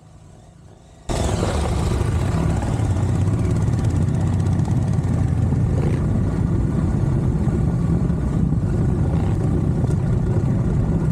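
Adventure motorcycle engine running steadily under way, with rushing wind and riding noise, cutting in suddenly about a second in.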